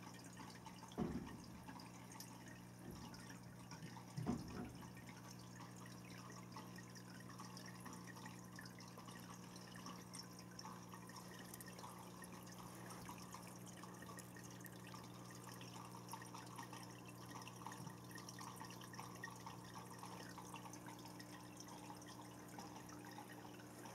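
Faint room tone: a steady low hum with a light crackle, broken by two soft knocks about one and four seconds in.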